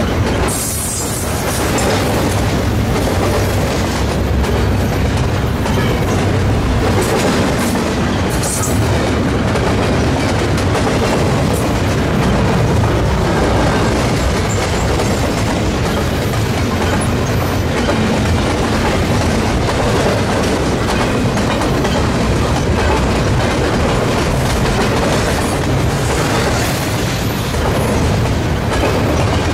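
Steady clatter and rumble of steel wheels on rails as the cars of a double-stack intermodal container train roll past close by.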